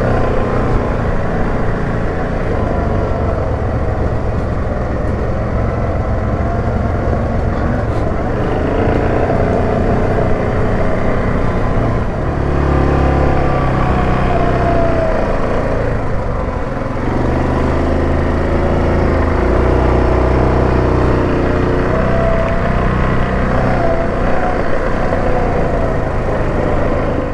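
Yamaha Grizzly 700 ATV's single-cylinder engine running steadily while riding a trail, its pitch rising and falling with the throttle and growing heavier about halfway through.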